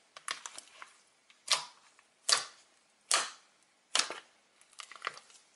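Fingers poking and pressing thick white fluffy slime, making a string of wet pops and crackling clicks. There are four louder pops, roughly one every second, between bursts of smaller clicks near the start and near the end.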